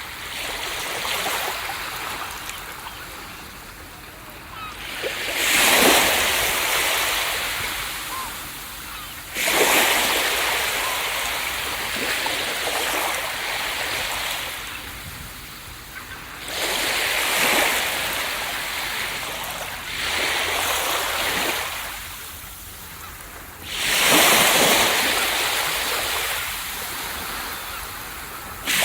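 Ocean waves breaking on a beach: a loud surge of hissing surf every few seconds, each one washing out and fading before the next comes in.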